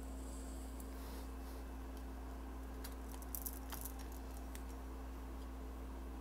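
Steady low electrical hum of room tone, with a few faint clicks and rustles about three to four seconds in as the recording device is handled.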